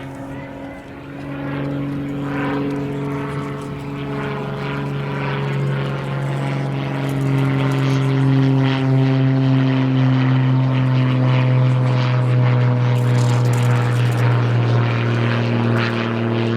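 Propeller airplane's engine droning. It grows louder over the first few seconds, and its pitch slides slowly down as it passes.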